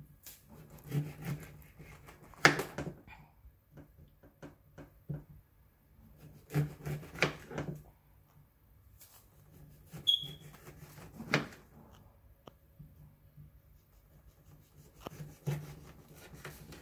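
Knife cutting lemons on a plastic cutting board: scattered knocks and scraping in several short clusters, the sharpest knock about two and a half seconds in.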